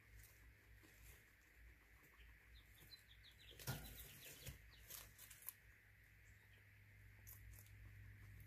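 Guinea pigs eating pellets from a bowl: faint crunching clicks, with a quick run of short, high chirps around the middle, over a faint steady hum.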